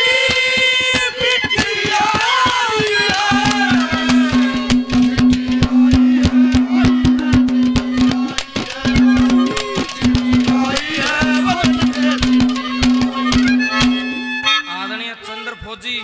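Instrumental passage of Haryanvi ragni folk music: fast hand-drum strokes over a steady held harmonium note, with a wavering melody line rising over it in places. The drumming drops away near the end.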